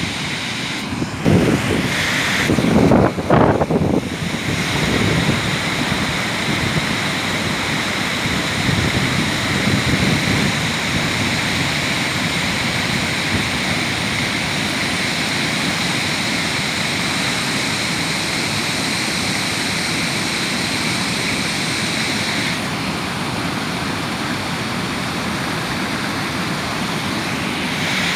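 Waterfall rushing with a steady roar, with wind buffeting the microphone in the first few seconds.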